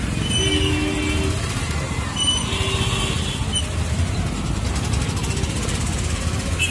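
Busy street traffic: motorcycle and auto-rickshaw engines running in a steady low rumble, with vehicle horns honking. There is one honk of about a second starting about half a second in, and shorter honks around two to three seconds in.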